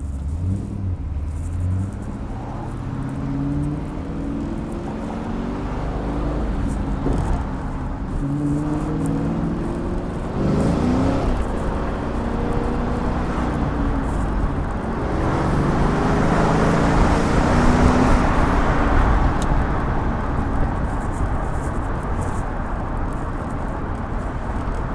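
Chevrolet Camaro Z28 V8 with aftermarket headers and exhaust accelerating: its engine note climbs and drops back over and over, like shifts up through the gears. A louder rushing noise swells in the second half.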